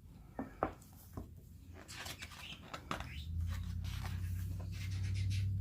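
Photobook pages turned by hand: soft paper rustling with a few light taps. A steady low hum comes in about three seconds in.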